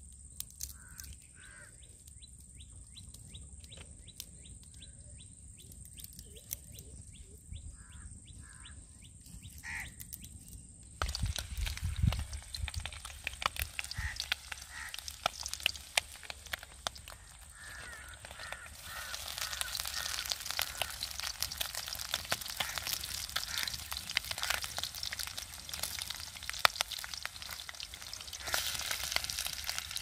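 Quail frying in oil in an iron wok over a crackling wood fire: a few bird calls and fire clicks at first, then about ten seconds in the sizzling starts suddenly and grows louder toward the end.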